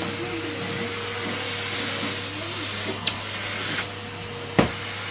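Henry canister vacuum cleaner running with a steady hum and hiss of suction; the hiss grows louder for about two seconds in the middle. A sharp knock comes near the end.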